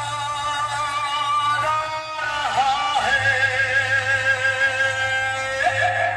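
Music played loud through a DJ sound system: long held, wavering sung or melodic notes over a steady low bass note.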